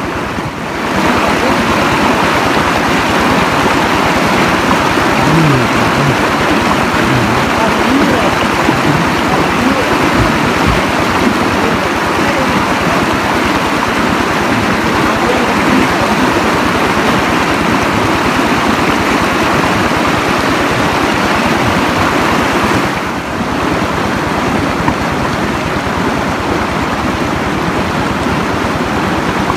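Stream water rushing steadily, a loud, even wash of sound that dips briefly just after the start and again about 23 seconds in.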